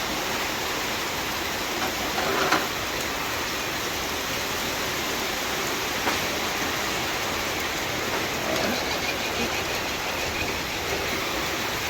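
Steady rain falling, a constant hiss, with a brief knock about two and a half seconds in.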